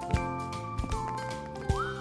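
Background music with a steady beat and whistle-like notes, one sliding upward near the end.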